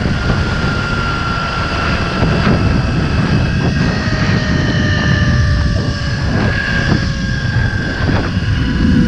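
Zipline trolley pulleys whirring along the steel cable, a thin whine that slowly falls in pitch as the rider loses speed. Heavy rumble of wind on the microphone underneath.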